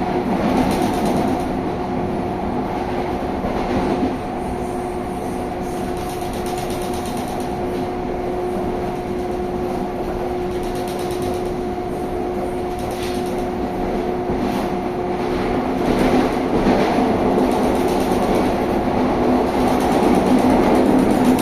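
Inside a CPTM Série 2000 electric multiple-unit train while it runs: a steady rumble from the running gear with a constant whine over it, getting louder about sixteen seconds in.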